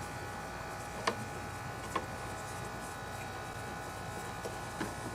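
A few faint clicks and taps as screws are worked out of a Briggs & Stratton lawn mower engine's cover, over a steady background hum.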